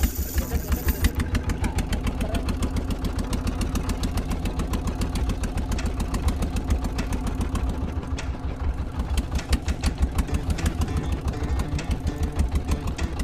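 Small motorboat's engine running steadily, a quick even chugging of firing strokes with a constant low hum.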